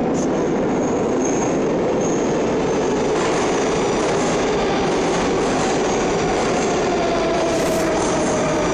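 Moscow metro train running through the station, a loud steady rumble of wheels on rails with a whine in it.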